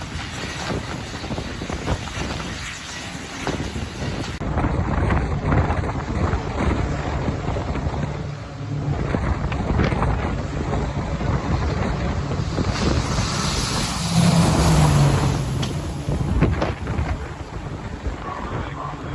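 Wind buffeting the microphone over a low, steady rumble, with a louder rushing surge about two-thirds of the way through. The character of the sound changes abruptly about four seconds in.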